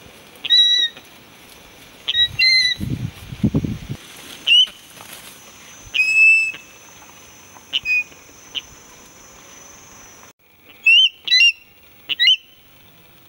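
Young eagle on its nest giving short, high, shrill calls, about a dozen at irregular intervals and one drawn out, in alarm at a hand reaching toward it. A low burst of wing flapping comes about three seconds in. A steady high background drone cuts off suddenly about ten seconds in.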